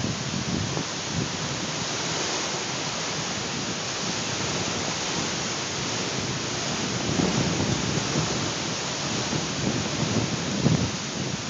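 Strong dust-storm wind: a steady rushing hiss, with low gusts buffeting the microphone about seven seconds in and again near the end.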